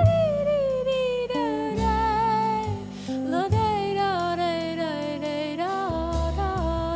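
A woman sings a slow, gliding jazz melody, accompanied by hollow-body electric guitar, double bass and drums.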